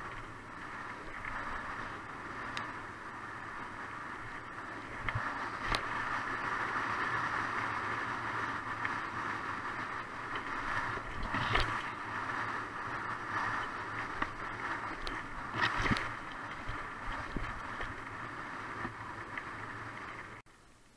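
Riding noise of a mountain bike descending a dirt singletrack, picked up by the rider's action camera: a steady rush of wind and trail rumble, with a few sharp knocks from bumps.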